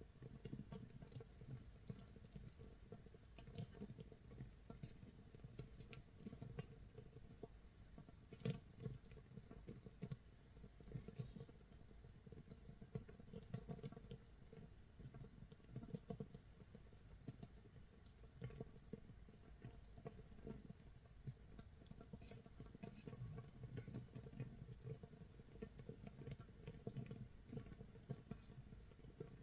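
Makgeolli starter mash (mitsul) fermenting in a crock, 24 hours in: a faint, dense, irregular crackle of tiny bubbles popping, with a few sharper pops, like light rain.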